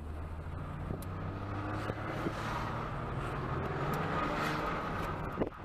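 Car engine running steadily while driving, heard from inside the cabin, with road noise.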